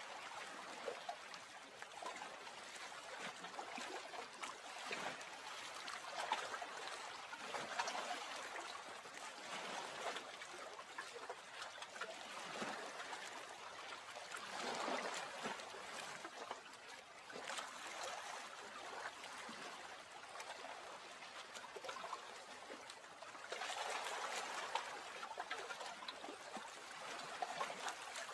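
Soft running water: an even trickling wash that swells now and then, most clearly about halfway through and again near the end.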